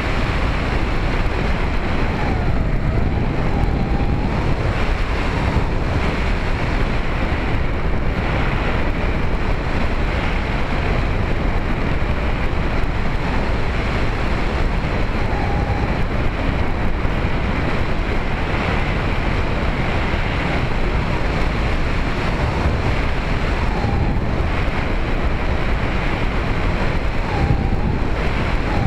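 Steady rush of airflow over the onboard camera of a Bixler 2 RC plane in flight, mixed with the drone of its electric pusher motor and propeller. A faint whine briefly dips in pitch and comes back a few times.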